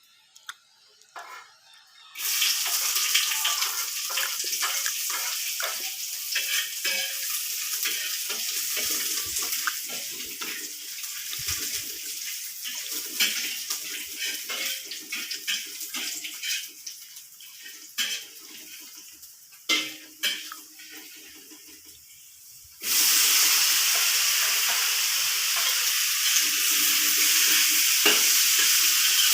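Food sizzling in hot oil in a pan, starting suddenly as it goes in, with occasional clicks of a utensil. The sizzle fades over time, then surges louder again near the end as more food is added to the oil.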